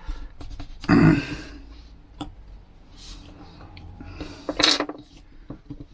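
A man's breathy grunts of effort, one about a second in and another near the end, with a few small clicks from the alarm's battery compartment as tiny button-cell batteries are prised out.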